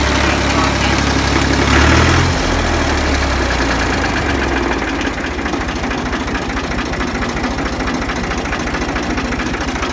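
Ford 2000 tractor engine running, its speed dropping about two seconds in and settling to an even idle.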